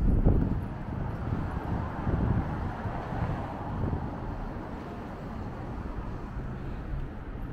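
Street ambience of road traffic passing on a city street, a steady low rumble that swells as vehicles go by, with wind buffeting the microphone.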